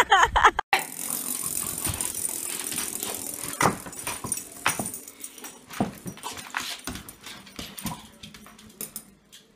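A dog making short sounds several times, scattered over a faint steady hiss.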